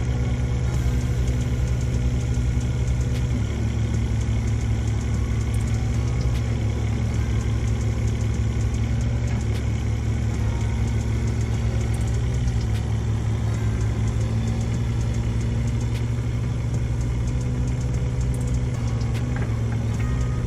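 Kubota KX019 mini excavator's diesel engine running steadily at low revs, with a few faint clicks over the top.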